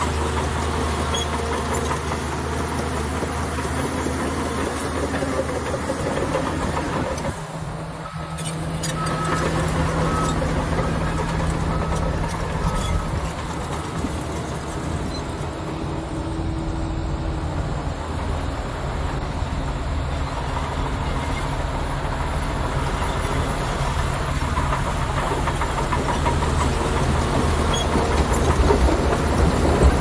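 Heavy diesel engine of earthmoving machinery running steadily. The sound dips briefly about eight seconds in, and a faint high beeping repeats for a few seconds after that.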